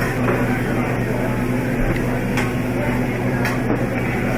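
Restaurant din at a hibachi grill: a steady low hum under a noisy background, with a couple of faint clicks about two and a half and three and a half seconds in.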